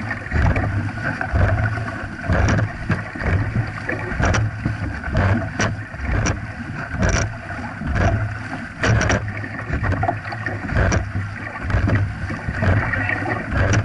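Dragon boat paddles digging into the water together in a steady stroke rhythm, about one stroke a second, with splashing and water rushing along the hull and wind buffeting the microphone.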